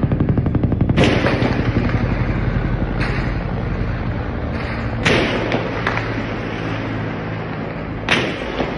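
Heavy gunfire: a rapid string of shots in the first second, then loud bursts about a second, three seconds, five seconds and eight seconds in, each trailing off in echoes. A steady low drone runs underneath.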